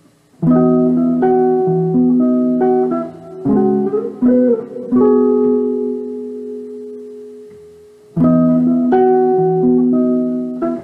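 Solo jazz guitar on an archtop guitar, played chord-melody style: chords begin about half a second in and change several times. One chord is left ringing and fades away for a couple of seconds, then fresh chords come in near the end.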